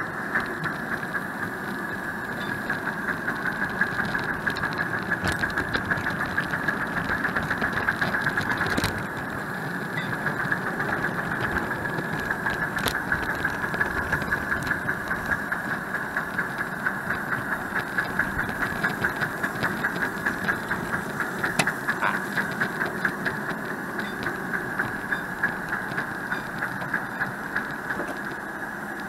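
Miniature 5-inch gauge live-steam locomotive running along the track, with a fast, even beat and a few sharp clicks.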